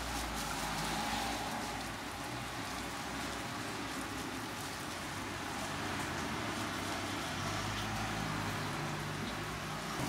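Shallow oil sizzling steadily on a flat griddle as hotteok (Korean sweet-filled dough pancakes) fry, with a low hum underneath.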